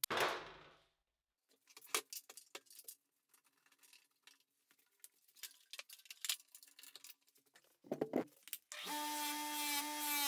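A knock, then scattered metallic clinks and rattles as the iron spear is handled. About nine seconds in, a bench grinder's wire wheel comes in, running steadily with a held hum and a high hiss as it brushes rust off the spear.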